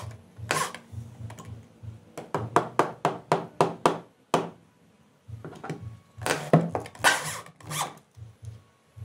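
A corded electric drill working a wooden rail in short bursts, with a quick run of about eight sharp knocks on the wood a little over two seconds in.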